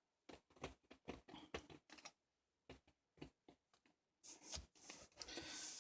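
Faint handling noise from artificial flowers and a plastic jar being adjusted: scattered small clicks and taps, then a soft rustle near the end.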